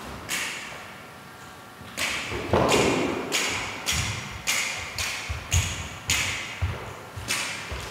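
Repeated sharp thuds on a wooden floor, about two a second from about two seconds in, each ringing out in the echo of a large hall.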